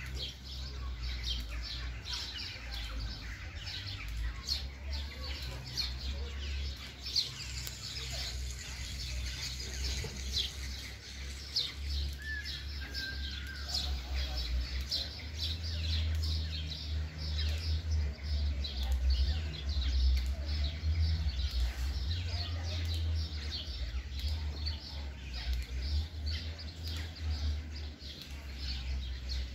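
Many small birds chirping, with quick short calls following one another, over a steady low rumble.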